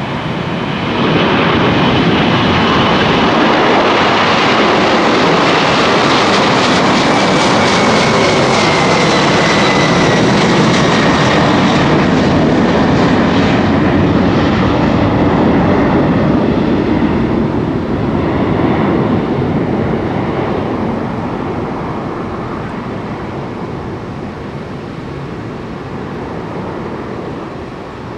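McDonnell Douglas MD-11F freighter's three jet engines at takeoff thrust as it lifts off and climbs away. The loud engine noise swells about a second in and holds, with a thin whine falling in pitch partway through, then slowly fades as the jet recedes.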